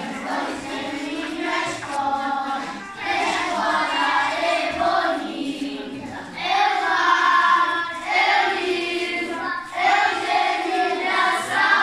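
A group of voices singing a song together in phrases of a few seconds, with brief pauses between them.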